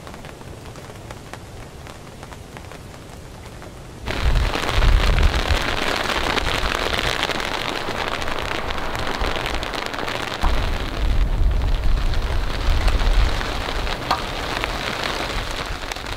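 Steady rain, then, after a sudden jump about four seconds in, a much louder, dense pattering of pea-sized soft hail, like tiny snowballs, falling, with deep rumbling coming and going underneath.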